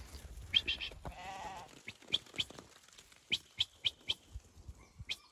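A sheep bleats once, a short wavering bleat about a second in, followed by a run of short sharp ticks.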